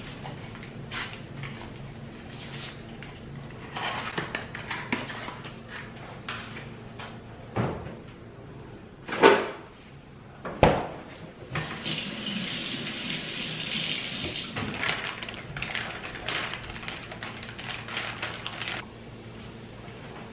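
Kitchen handling clatter with two loud knocks about nine and ten and a half seconds in, then water running for about seven seconds before it stops.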